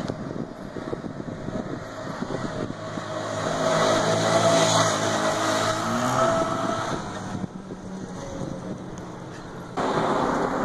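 A motor vehicle's engine passing on the street, growing louder to a peak about four to five seconds in and then fading away.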